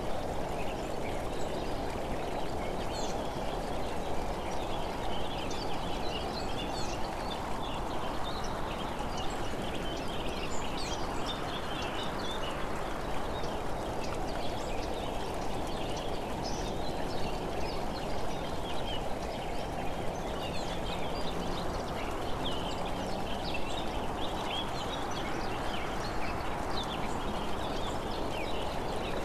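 Steady road and wind noise from a camera travelling along an asphalt road, with a constant patter of small clicks and rattles.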